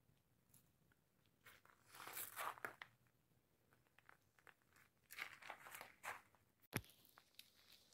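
Faint crunching footsteps on gritty ground in two short runs, then a single sharp click near the end.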